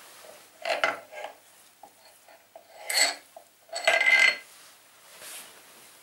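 Steel wheel spacers and axle clinking and scraping as they are slid off a motorcycle's front axle and set down, a few short metallic clinks, the two loudest about three and four seconds in, ringing briefly.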